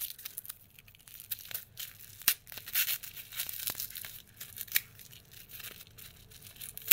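Plastic packaging being crinkled and torn by hand: irregular rustles and crackles with scattered sharp clicks, ending on one sharp click.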